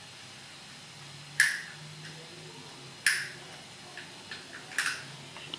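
Three sharp clicks, evenly spaced about a second and a half apart, with a few faint ticks between them.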